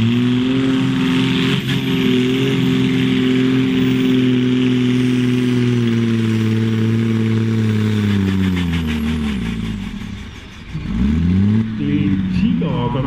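Fiat tractor's diesel engine running hard at steady high revs while pulling the sled, then bogging down under the load, its pitch and loudness falling over about three seconds as the pull ends. Near the end it picks up revs again briefly.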